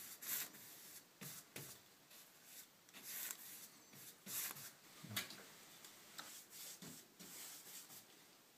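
Synthetic paintbrush dragged along a wall while cutting in paint: faint swishing, scratchy bristle strokes coming in an irregular run.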